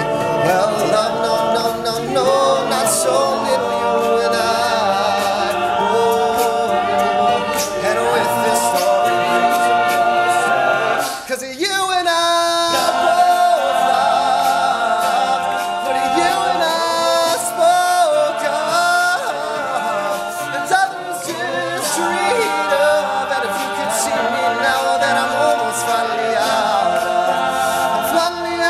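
All-male a cappella group singing in close harmony, several voices holding shifting chords over a steady beat of ticks, with a brief thinning and upward slide in pitch about eleven seconds in.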